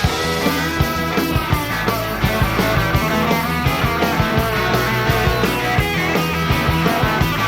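Live rock band of electric guitars, bass guitar and drums playing an instrumental passage with no singing, drums hitting in a steady beat.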